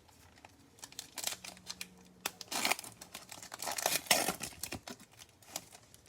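Plastic-foil trading-card pack wrapper being torn open and crinkled: a run of crackling rustles that builds about a second in, is loudest in the middle and dies away near the end.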